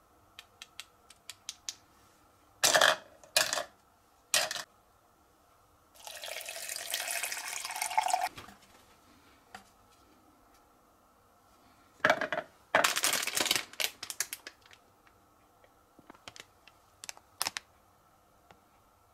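Dried scallops dropped one by one into a plastic tub with small clicks, then a few loud knocks as the tub is handled, and water poured in for about two seconds. Later comes another run of loud knocks and rustles as dried shiitake mushrooms go into a second plastic tub, followed by scattered light clicks.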